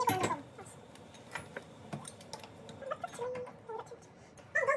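Light scattered clicks and taps of crockery and kitchen things being handled on a counter, with a short vocal sound right at the start and another near the end.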